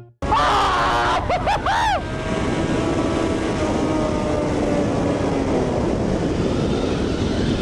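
Suzuki B-King's 1340 cc inline-four running on the move, with a few quick revs up and down in the first two seconds. After that it cruises steadily under constant wind noise on the helmet camera.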